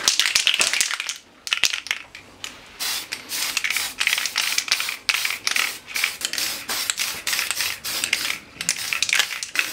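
Aerosol can of Tamiya grey surface primer hissing in a run of short spray bursts, about two or three a second, with a brief pause near the start.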